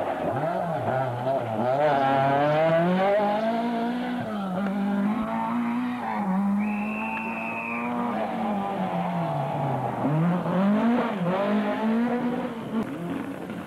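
Rally car engine revving hard, its note rising and falling several times as the driver lifts off and accelerates again, with a brief high-pitched squeal about halfway through.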